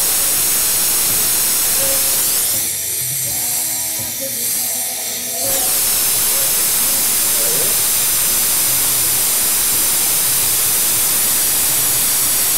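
Glassblowing hand torch flame hissing steadily while it heats a glass joint. The hiss dips and thins for about three seconds a few seconds in, then comes back full.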